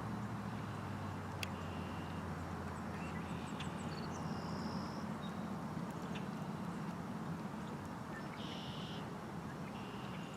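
Birds giving short, high whistled notes every second or two over a steady low rumble.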